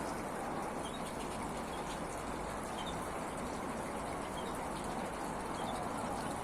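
Small artificial waterfall and fountain splashing steadily, with a few faint short chirps from aviary finches.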